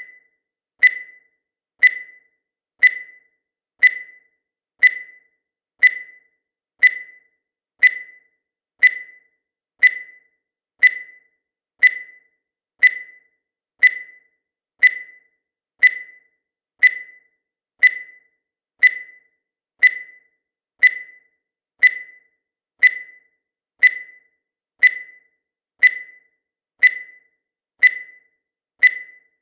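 Countdown timer sound effect: a short, high tick once every second, each one sharp at the start and fading quickly.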